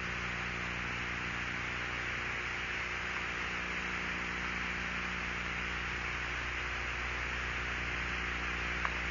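Steady hiss and mains hum of an open radio or broadcast audio line between voice transmissions, with one faint click near the end.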